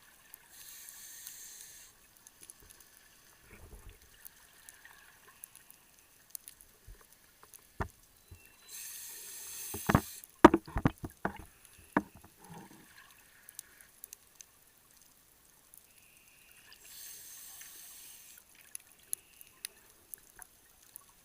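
Scuba regulator breathing heard underwater: three hissing breaths about eight seconds apart. After the middle breath comes a loud burst of clicking and bubbling as the exhaled air escapes.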